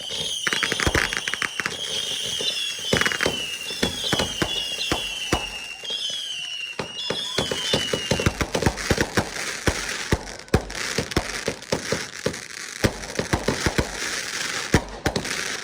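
Consumer fireworks finale: rapid bangs go off one after another, with a string of short whistles falling in pitch through the first half and a dense crackle in the second half.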